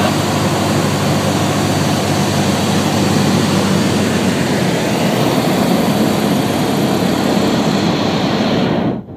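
Cessna 150's Continental O-200 four-cylinder engine and propeller droning steadily, heard inside the cockpit in flight. The noise drops away sharply near the end.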